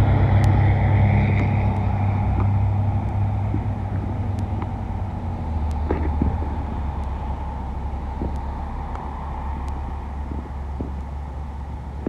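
A loud truck engine passing by: a steady low hum that fades away and drops a little in pitch about halfway through.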